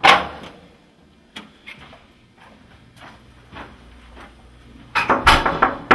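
A door bangs shut, followed by a few faint clicks, then a quick series of sharp knocks on a wooden door about five seconds in.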